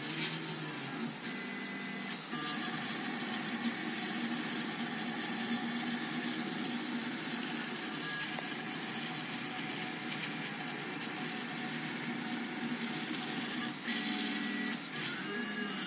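Printrbot-style RepRap 3D printer running: its stepper motors whir and whine steadily as the print head and bed move while laying down a print.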